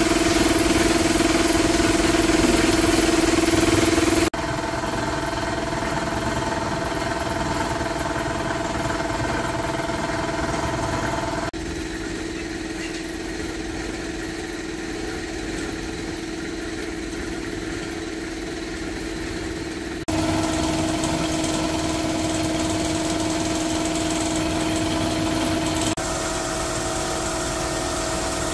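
A motor running steadily with a constant humming tone, heard in several edited takes of differing loudness that cut abruptly from one to the next.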